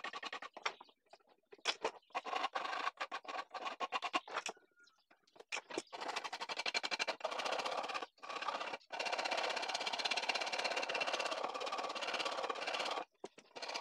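A hand file worked in rapid back-and-forth strokes along the edge of a glued-up hardwood piece, a dry rasping scrape. It comes in several runs with brief pauses between them.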